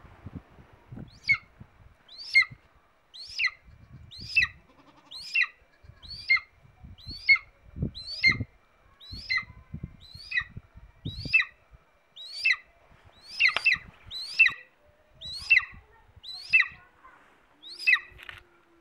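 Golden eagle calling: a series of short, high, thin yelps, each sliding downward, about one a second, over soft knocks and rustling from handling.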